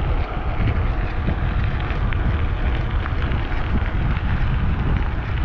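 Steady rushing of whitewater rapids on the Youghiogheny River, with wind buffeting the microphone in uneven low gusts.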